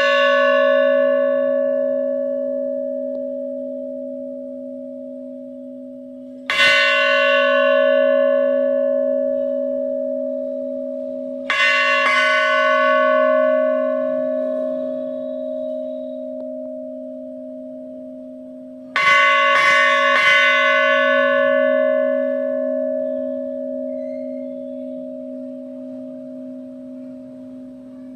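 A 125 kg temple bell rung repeatedly: each stroke gives a bright clang that fades slowly over several seconds, over a steady low hum that never dies away. It is struck once about six seconds in, again about eleven seconds in, then three times in quick succession around nineteen to twenty seconds.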